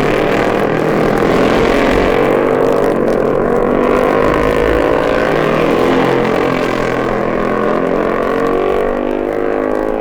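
A bunch of 500 cc Senior-class racing motorcycles going flat out together, several engine notes overlapping and climbing in pitch as they accelerate, heard off an old vinyl record.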